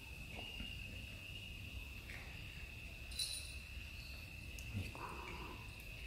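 Steady high insect trill of crickets at night. About three seconds in, a small collar bell on one of the feeding kittens tinkles once.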